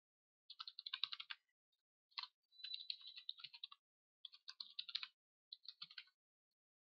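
Computer keyboard being typed on in quick runs of faint keystroke clicks with short pauses between, stopping about six seconds in.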